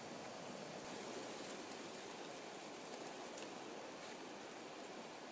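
Faint, steady hiss of outdoor ambience, with a few light ticks.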